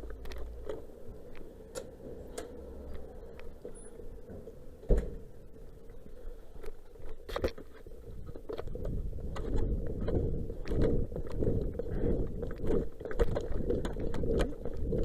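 A vehicle engine running, with a single loud thump about five seconds in. The rumble grows louder and rougher from about eight seconds on.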